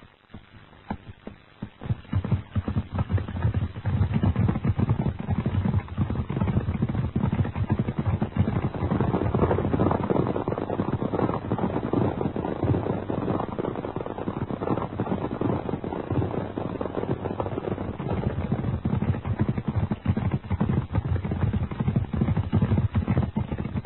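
Horses galloping, a radio-drama sound effect: a fast, dense clatter of hooves that starts about a second and a half in and grows louder over the next few seconds.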